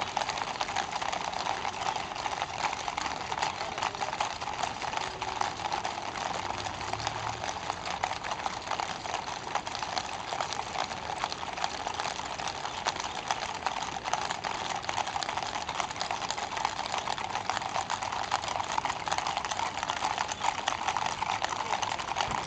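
Many horses' hooves clip-clopping on asphalt as a mounted column walks and trots past, the strikes overlapping into a dense, continuous clatter. Vehicle engines run steadily underneath.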